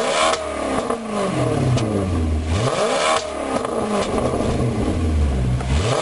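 Car engine revved while parked, heard at its twin exhaust tips: a sharp rise in revs at the start and another about three seconds in, each falling slowly back toward idle.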